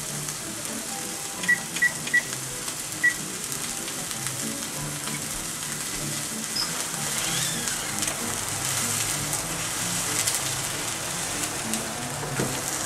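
Chicken cutlets sizzling in a nonstick frying pan, a steady hiss throughout. A few short high beeps come about two seconds in, and music plays underneath.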